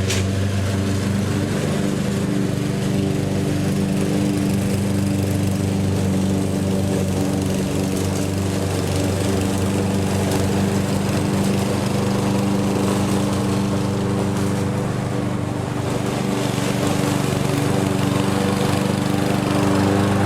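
Petrol lawn mower engine running steadily at a constant speed.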